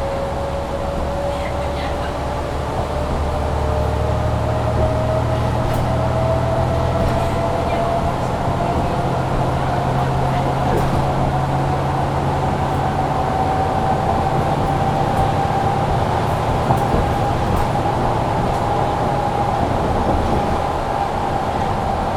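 Mercedes-Benz Citaro C2 G articulated bus with a Voith automatic gearbox accelerating under load, heard from inside. The engine's low drone strengthens a few seconds in, while a whine climbs steadily in pitch as the bus gathers speed and levels off near the end. A loud heater blower keeps up a steady rush underneath.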